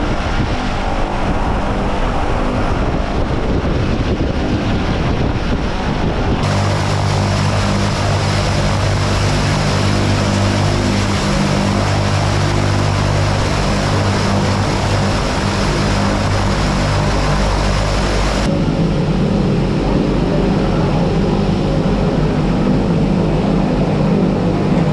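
DHC-6 Twin Otter's twin PT6A turboprop engines and propellers running, a loud steady drone with a low hum. The tone changes abruptly twice, about six seconds in and again about two-thirds of the way through.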